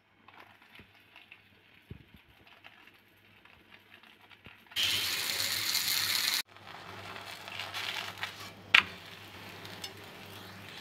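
Faint crinkling of a plastic sheet as a frozen paratha is laid on a flat griddle, then the paratha sizzling on the hot tawa. The sizzle is loud for a second and a half about five seconds in and cuts off abruptly, then goes on softer and steady with crackles and one sharp click near nine seconds.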